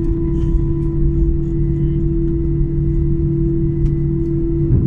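Airbus A319's CFM56 jet engines at taxi idle, heard inside the cabin: a steady hum with a low rumble underneath.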